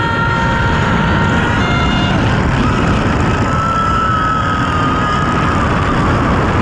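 Roller coaster ride heard from the train: a loud, steady rush of wind and the train's rumble on the track. Over it a long, high, held tone comes twice, dipping only slightly in pitch.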